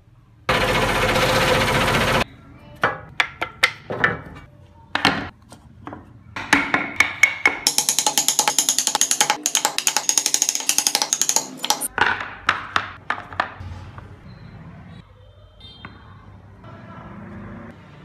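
A scroll saw cutting wood for the first two seconds. It stops with a cut, and a hand chisel works the wood: a run of sharp, irregular knocks and cuts, densest in the middle, thinning to a few scattered taps near the end.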